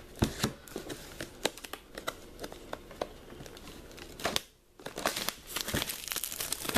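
Plastic shrink wrap being torn and crinkled off a cardboard trading-card box, a dense run of sharp irregular crackles with a short pause a little past halfway.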